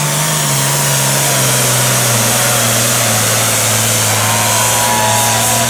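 Super Farm class pulling tractor's diesel engine running flat out under the load of the sled. Its pitch sags over the first two seconds, then holds steady and loud.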